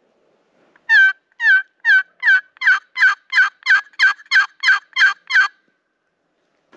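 A series of about a dozen turkey yelps, loud and evenly spaced at roughly three a second, starting about a second in and stopping about a second before the end.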